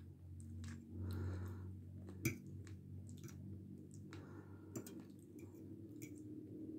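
Metal fork scraping and clinking on a plate while a person chews food, with one sharp clink a little over two seconds in.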